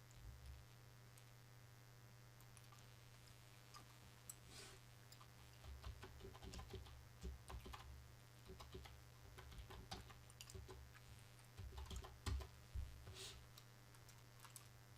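Faint, irregular clicking and tapping of a computer keyboard and mouse over near silence, mostly in the middle of the stretch.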